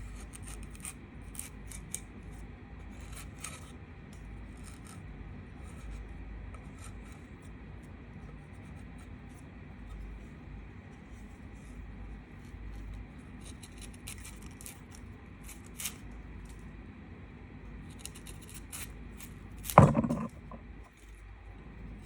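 Light scraping and rubbing of hand tools or metal parts at a workbench, with faint scattered ticks and one loud knock about 20 seconds in.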